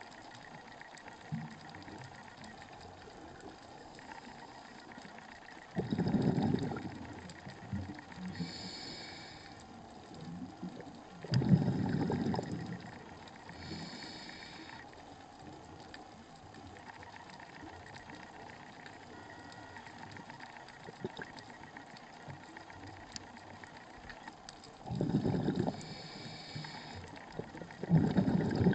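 Scuba diver breathing through a regulator underwater: four rushes of exhaled bubbles several seconds apart, with fainter hissing inhalations between them.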